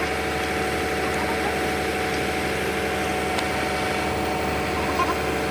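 Excavator's diesel engine running steadily, with a constant hum held through.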